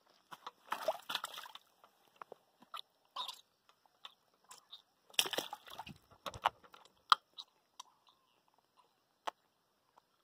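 Splashing in shallow water as a freshly caught piau cabeça-gorda is grabbed by hand and lifted out dripping: two bursts of splashing, about a second in and again about five seconds in, with scattered small clicks and wet taps in between.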